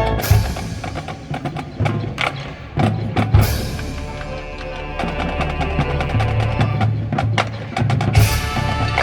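Marching band playing a percussion-heavy passage: a dense run of drum and wood-block-like hits, with three loud ringing crashes, near the start, about a third of the way in, and near the end.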